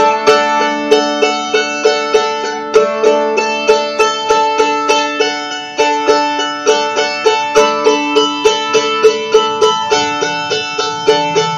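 A mandolin tuned to open D, picked in a steady rhythm of about two or three strokes a second. The chord changes every few seconds as one-finger chords are fretted over the open strings.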